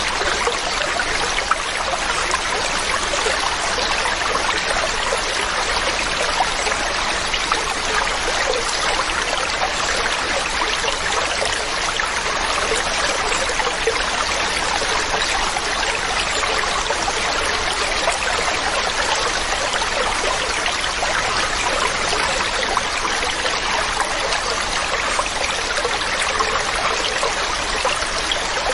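Water falling and splashing over a waterfall, a steady, even rush with a bright hiss and little deep rumble.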